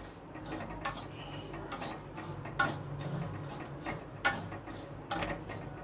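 Dried maize kernels stirred through hot salt in an iron kadhai, a low rustle broken by a few scattered sharp pops and clicks, about four loud ones, as the first kernels start to burst.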